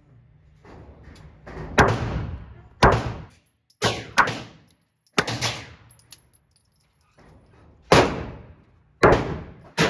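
About eight gunshots at irregular intervals, each a sharp crack with a short ringing tail, fired by other shooters at the range rather than the speaker's own Glock.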